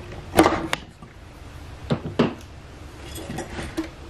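Sharp knocks, clicks and light rattling of a Vestax PDX-2000 turntable motor being handled and worked loose from its chassis, the loudest knock about half a second in and two more around two seconds.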